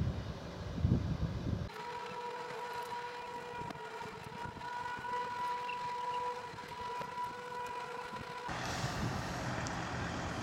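Mobile crane running as it hoists a personnel basket: a steady, even whine over its engine hum. Gusts of wind buffet the microphone at the start and again near the end.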